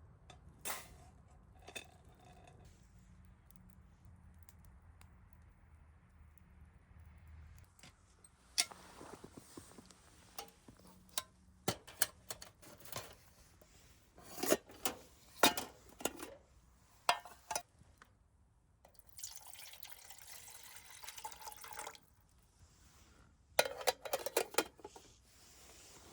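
Water being poured for a few seconds, with scattered clinks and knocks of metal camp cookware being handled.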